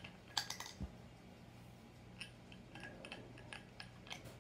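Small clicks and light scraping from a handheld flashlight being reassembled, its cap being twisted back on after the batteries go in. There is a quick cluster of clicks about half a second in, then scattered light ticks.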